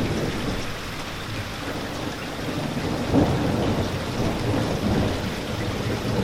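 Steady rain with a low rolling rumble of thunder underneath, swelling briefly about three seconds in.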